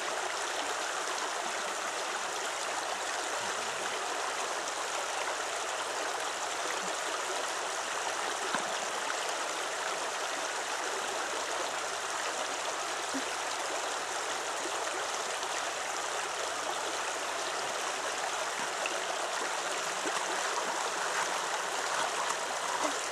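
Shallow river running over rocks: a steady, even rush of water.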